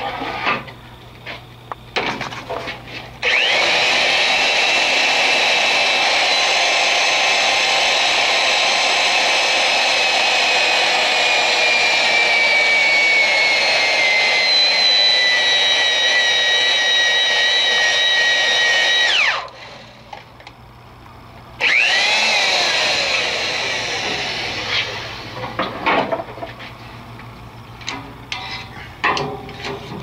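Electric drill turning a tube roller (tube expander) inside a boiler tube, rolling the tube end tight into the steel tube sheet. It runs steadily for about sixteen seconds with a whine that sinks slowly in pitch, stops sharply, then makes a brief second run that winds down. Metal clicks and knocks of the tool come before and after.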